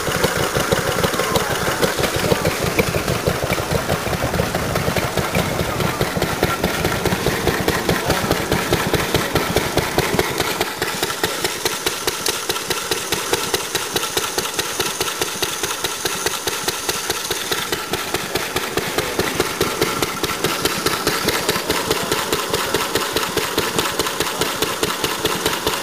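Vintage single-cylinder stationary engines running, with a quick, even beat of firing strokes.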